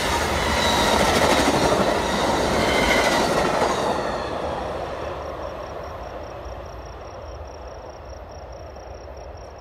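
Amtrak passenger train's last cars rolling past on the rails, then fading steadily from about four seconds in as the train moves away. A faint high, pulsing insect trill is heard under the fading train.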